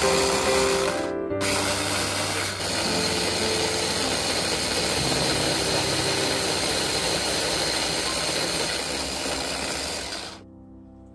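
Electric food chopper whirring as its blade grinds butter with shallot, garlic and parsley. It cuts out briefly about a second in, runs on steadily, and stops near the end.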